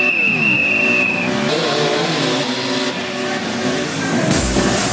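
Dirt bike engine revving, its pitch falling and climbing again several times as the bike is held on its back wheel, with a high steady squeal through the first second. Rock music with drums comes in near the end.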